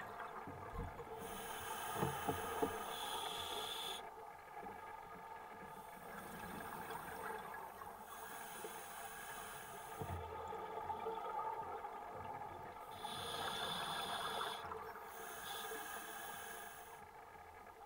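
Scuba diver breathing through a regulator underwater: several long hissing inhalations, each a few seconds, alternating with duller stretches of exhaled bubbles.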